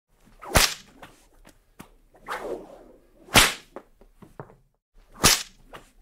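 Whip cracks: three sharp, loud cracks, about a second in, halfway through and near the end, with a softer swish of a whip through the air between the first two.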